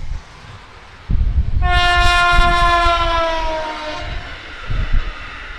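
A train horn sounds one long blast about a second and a half in, lasting about two and a half seconds, its pitch sagging slightly as it ends, over a low rumble.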